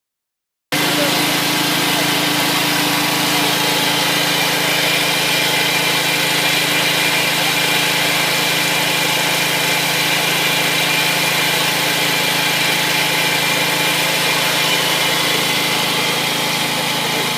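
Small engine of a farm cultivator running steadily at an even speed, cutting in abruptly about a second in.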